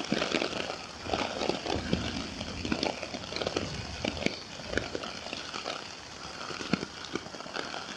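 Rain falling on a tent's fabric: a dense, uneven patter of drops, with some close rustling of fur and fabric.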